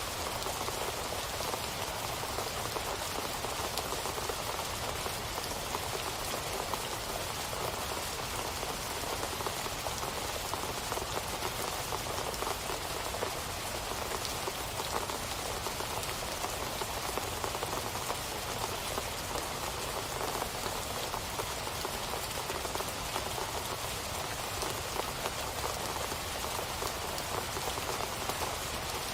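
Steady rain falling, an even dense patter of drops on a surface with no let-up or thunder.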